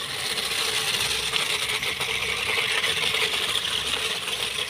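Toy RC off-road trucks driving: their small electric motors and gearboxes whirring steadily, with a light rattle from the gravel under their tyres.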